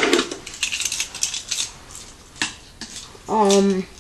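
Small plastic Tech Deck fingerboards clicking and clattering against each other and the toy ramp as they are gathered up, with one sharper click a little past halfway. Near the end, a short hummed voice sound.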